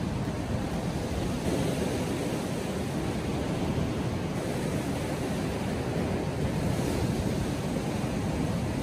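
Steady rush of ocean surf breaking and washing over a rocky shoreline on a strong incoming tide.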